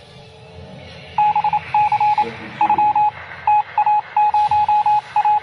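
Electronic beeper sounding one steady pitch in rapid, irregular runs of short beeps, starting about a second in.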